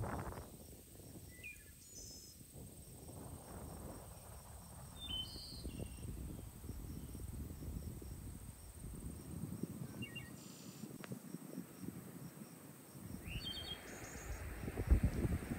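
Wind rumbling over the microphone, with scattered short high chirps and a faint row of high ticks; a sharp bump near the end.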